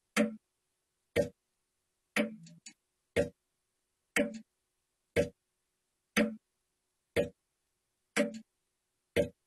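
Clock ticking evenly, one sharp tick a second with complete silence between ticks; about two seconds in, one tick is followed by a couple of fainter clicks.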